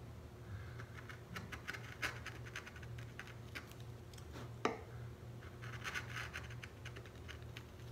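Small hand carving gouge cutting into a wooden printing block in quick, short scraping strokes, in two bursts, with a single sharp knock near the middle.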